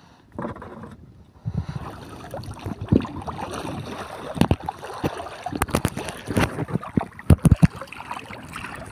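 Seawater sloshing and splashing close by, with irregular knocks and clatter and a few loud thumps in the second half.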